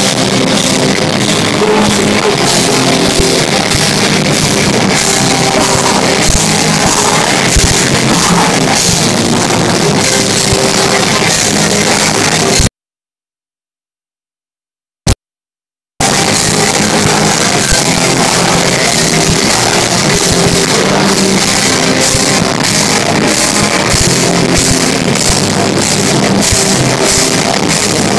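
Live heavy metal band playing loud, with distorted electric guitars and a pounding drum kit. About halfway through the sound cuts out to silence for about three seconds, broken only by a split-second burst of the music, then comes back.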